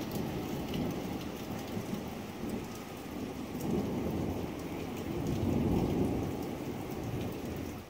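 Steady rain falling on a wet paved patio, with a low rumble swelling twice in the middle.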